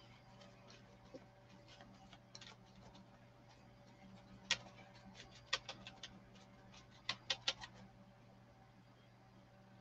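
Faint taps and clicks from hands handling a painted craft pumpkin and dabbing it with a paper towel, several in a cluster mid-way, over a steady low hum.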